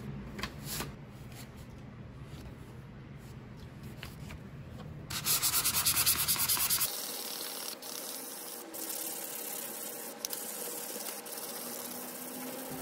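Sandpaper rubbed by hand back and forth along the steel blade of a carpenter's square. It is loudest for about two seconds near the middle, where quick, even strokes give a fast rasping rhythm, then it goes on as a steadier rub.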